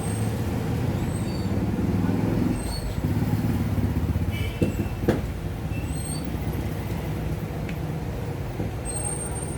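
Steady low rumble of a motor vehicle or road traffic, with two sharp clicks about halfway through.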